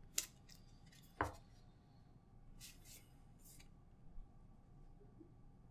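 Quiet handling of box contents: two sharp taps about a second apart, then brief soft rustling of paper packaging and a small tap.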